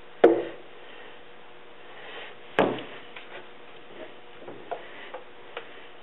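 Two sharp knocks on a wooden workbench, about two seconds apart, as a gel coat container is set down, then a few light taps from a brush working black gel coat into a fibreglass boat hull mold.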